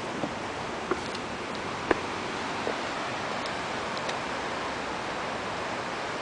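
Steady rushing of river water below, with a few short sharp taps in the first few seconds.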